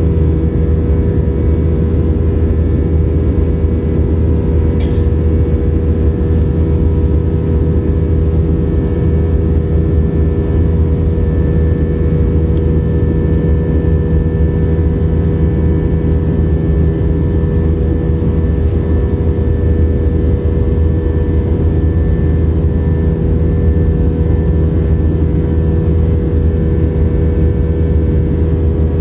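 Jet airliner engines running steadily, heard inside the passenger cabin as a loud, even drone with a steady hum, and one brief click about five seconds in.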